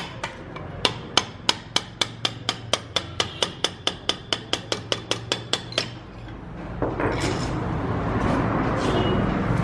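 A string of about twenty light metal taps, about four to five a second and getting slightly quicker, then stopping about six seconds in. They come from tapping a screwdriver to drive the gudgeon pin out of an old Royal Enfield Bullet piston.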